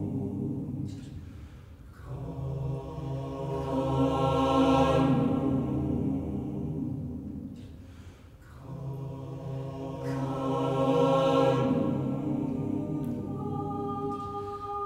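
Recorded a cappella choir singing slow, sustained chords that swell and fade in long phrases. The sound dips about two seconds in and again around eight seconds, then builds again.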